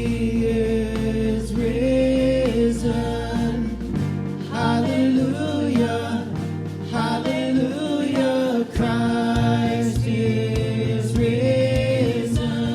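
Music: voices singing a hymn-like song with instrumental accompaniment and a steady bass line.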